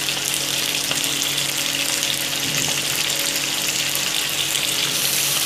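Raw chicken pieces sizzling steadily in hot oil with fried onions in a kadhai, a dense even hiss just after the meat goes into the pan.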